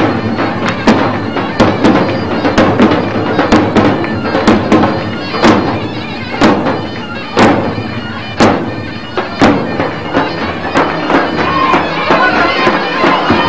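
Davul bass drum and zurna playing Turkish folk dance music: a sustained wind-instrument melody over heavy drum strokes about once a second.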